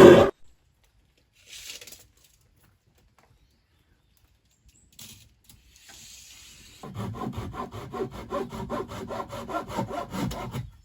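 Japanese pull saw cutting through wood in fast, even strokes, starting about seven seconds in. A loud, short burst comes right at the start, and a few faint scrapes follow before the sawing begins.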